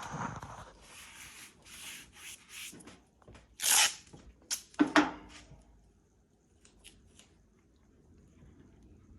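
Plastic masking sheeting and tape rustling and crinkling as a car is masked off for paint, with two louder, sharp crackles a little past halfway, then only faint handling ticks.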